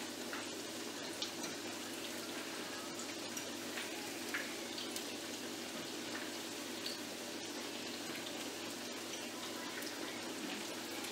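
Plantain fritters (maruya) frying in hot oil in a pan: a steady sizzle with scattered small pops and crackles.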